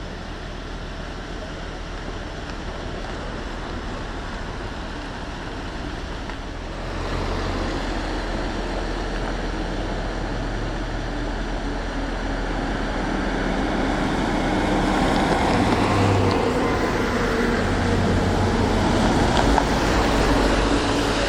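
Road vehicle engines running and drawing closer, growing steadily louder with a step up about seven seconds in.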